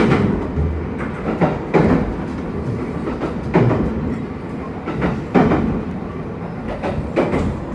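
HB-E300 series hybrid train running at speed, heard inside the carriage: a steady rumble with the wheels clacking over rail joints every second or so, some strikes coming in quick pairs.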